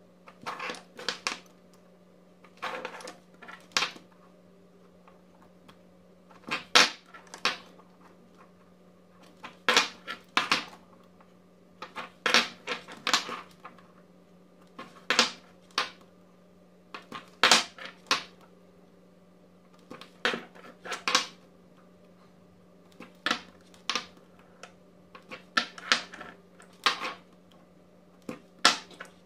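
18650 lithium-ion cells being picked up and set down on a wooden desk, light clacks of the cells against the wood and each other, in small clusters every second or two, over a steady low hum.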